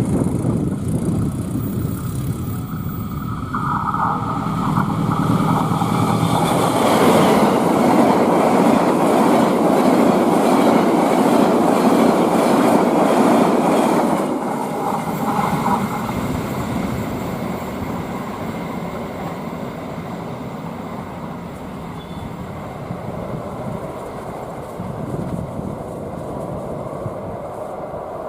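Passenger train passing at high speed close to the track, its wheels and carriages making a loud rush and clatter that builds, peaks for several seconds, then fades away after about fourteen seconds in.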